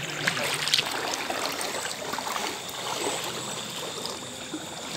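Floodwater sloshing and splashing steadily around people wading through it, with small irregular splashes.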